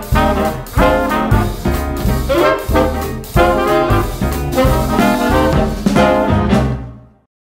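Upbeat swing-style background music with brass over a steady beat, fading out near the end.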